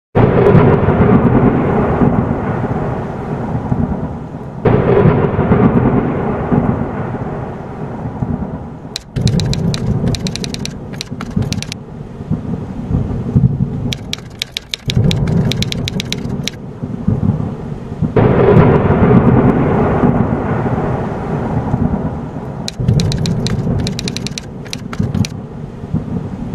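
Thunderstorm sound effect: heavy rumbling thunder over rain, swelling afresh every four to five seconds. Stretches of quick, crisp clicking come in between the swells.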